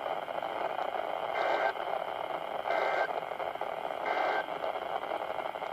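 Weather radio receiver hissing with static, broken by three short, identical digital data bursts about a second and a half apart. This is the pattern of a SAME end-of-message code marking the end of a NOAA Weather Radio broadcast.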